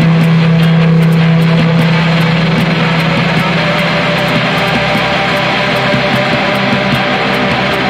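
Experimental improvised guitar music: a dense, steady wash of sustained guitar tones and noise, with a low drone note that fades out about three seconds in.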